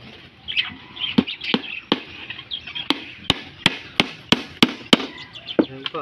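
Hammer driving nails into a plywood nest box: about ten sharp strikes, the later ones in a quick run of about three a second. Birds chirp throughout.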